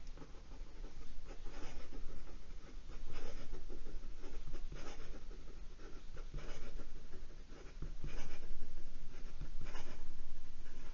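Fine steel nib of a Penbbs 380 metal fountain pen writing quickly across notebook paper, a steady run of pen strokes rising and falling with each written word.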